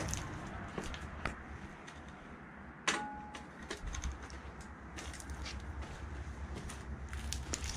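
Footsteps through debris on a mill floor, with scattered clicks and knocks and one sharp metallic clink that rings briefly about three seconds in, over a low rumble.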